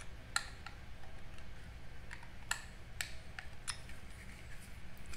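Plastic parallax scope wheel being handled and fitted onto a rifle scope's turret: about eight light clicks and taps, spaced irregularly, as the wheel and the hex key in its set screw knock and shift. A faint steady hum lies underneath.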